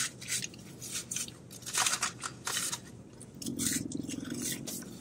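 Close-up eating sounds: biting, crunching and chewing fried fast food, with many short sharp clicks from the mouth. A short closed-mouth hum rises over the chewing about three and a half seconds in and lasts about a second.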